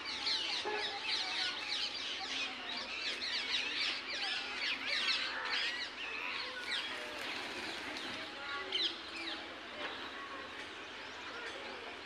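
A chorus of many small birds chirping and twittering at once, dense at first and thinning out after about halfway.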